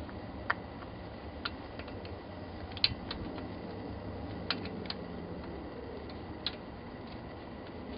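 Scattered light clicks and taps, about eight in all with the sharpest a little before the middle, from small parts being handled while a snow blower carburetor's float bowl is fitted back in place, over a steady low room hum.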